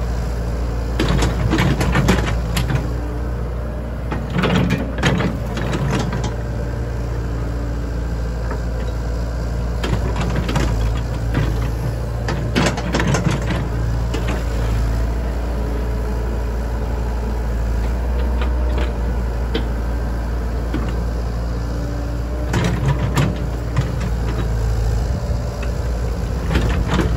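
Komatsu compact crawler excavator's diesel engine running steadily while it digs, with clusters of clanks and scraping from the bucket working through soil and rubble several times.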